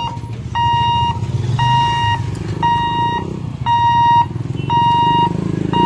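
Level-crossing warning buzzer beeping about once a second, each beep about half a second long, while the boom barrier lifts. Under it is the low running of idling motorcycle and scooter engines.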